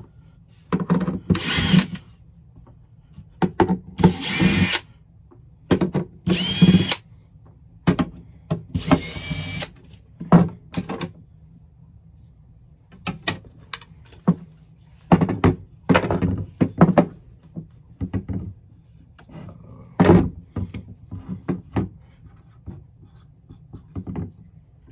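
Cordless drill-driver backing out the screws of a paper cutter, running in four short bursts over the first ten seconds, one with a rising whine as the motor spins up. After that come scattered clicks and knocks of metal parts and tools being handled and set down on the bench.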